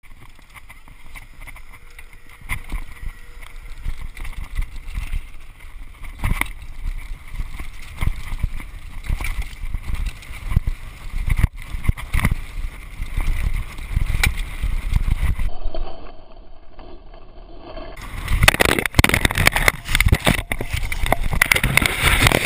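Mountain bike going fast down a dirt trail: wind rumbling on the microphone and the bike rattling and clattering over bumps, then a louder jumble of knocks and scuffs in the last few seconds as the rider crashes and tumbles into the grass.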